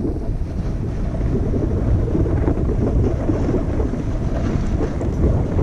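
Wind buffeting a GoPro's microphone during a downhill run, a steady low rumble, with the hiss of skis or board sliding over groomed snow beneath it.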